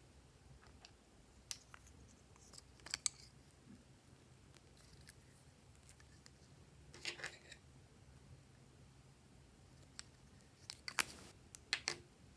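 Glossy slime being handled and mixed, giving short sticky crackles and clicking pops in a few small clusters.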